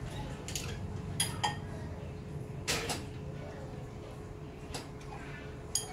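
A handful of separate knocks and clinks, typical of kitchenware being handled and set down, with the loudest about three seconds in. A steady low hum runs underneath.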